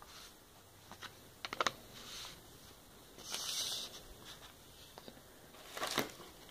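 Light clicks and taps of hard plastic coin slabs being handled and set down on a wooden table, with a quick cluster of clicks about a second and a half in, a brief rustle about halfway, and more clicks near the end.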